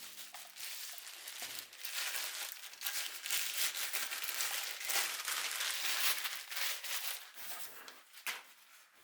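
Continuous crinkling and rustling as wrapping material is handled, thinning out to a few scattered crackles near the end.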